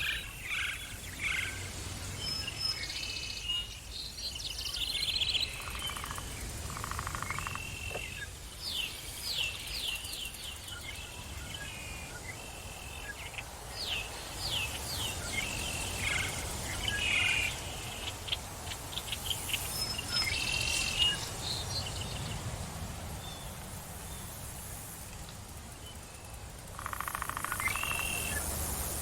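Forest ambience with several birds chirping and calling: short chirps and runs of quick falling notes. A buzzy pulsing trill comes in twice, briefly around seven seconds and again near the end, over a low steady rumble.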